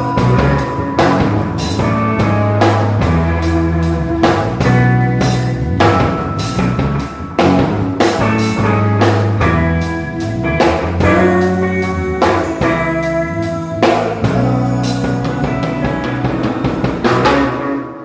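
Rock music with guitar, bass and a drum kit playing a steady beat; the last chord dies away right at the end.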